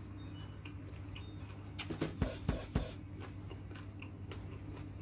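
Close-up eating sounds of someone chewing pounded long-bean salad: soft mouth and lip noises, with a quick cluster of sharper smacking or sucking sounds about two seconds in, over a steady low hum.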